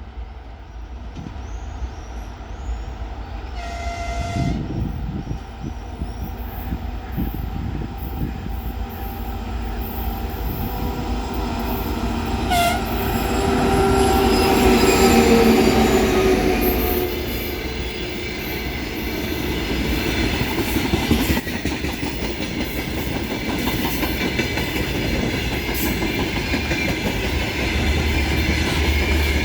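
2TE116 twin-section diesel locomotive passing with a freight train. Its horn sounds one short blast about four seconds in and a brief toot about twelve seconds in. The diesel engines grow loudest around the middle as the locomotive goes by, followed by the steady rumble and clatter of freight wagons rolling over the rail joints.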